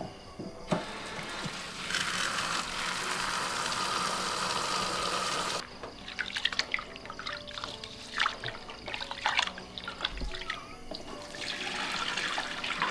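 Water running steadily, then stopping abruptly about five and a half seconds in, followed by scattered light clicks and knocks, with water running again near the end.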